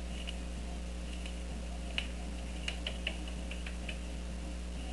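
A cockatiel's claws and beak tapping on a wooden tabletop: a scattering of light, irregular clicks, with the clearest one about two seconds in, over a steady low hum.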